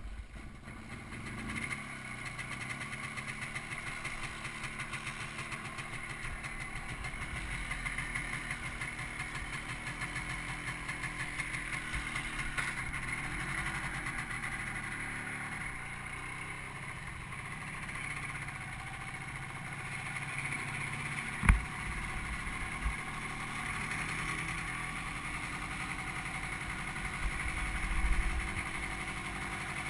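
Motorcycle engine running steadily while riding along, its revs rising and falling slightly. There is a single sharp knock a little past halfway.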